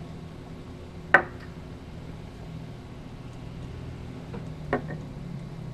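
Two sharp clicks from handling small metal vaping gear (a rebuildable dripping atomizer and a dropper bottle of e-liquid), one about a second in and a smaller one near the end, over a steady low hum.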